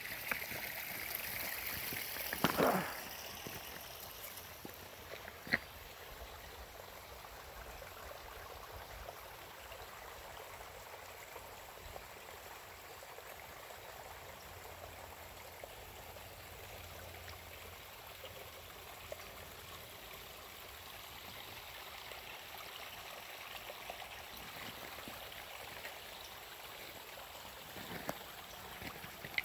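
Rushing stream water, a steady even hiss, with a short thump about two and a half seconds in.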